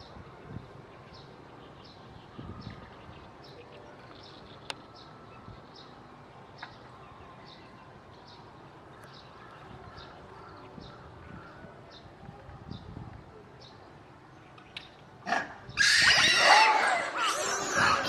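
A group of macaques suddenly breaks into loud, overlapping screaming calls, many voices at once, about fifteen seconds in: excited calling at the approach of keepers bringing food. Before that only a faint high chirp repeats steadily over low background noise.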